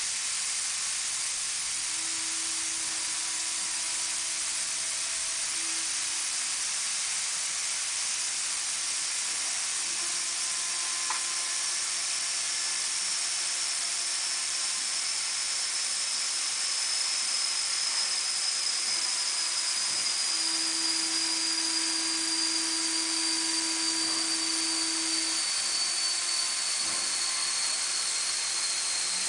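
Truck tyre changer machine at work: a steady hiss throughout, with a low steady hum that comes in for a few seconds twice, and a faint high whistle slowly falling in pitch through the second half.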